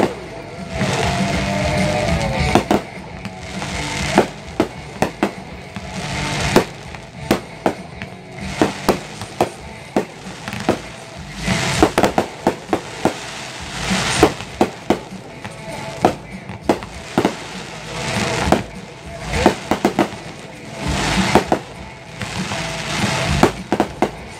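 Fireworks display set to music: a steady string of aerial shell bursts and launch reports, often several a second in clusters, over continuous music.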